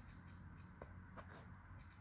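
Near silence: faint outdoor ambience with a low steady hum and a few brief, faint ticks.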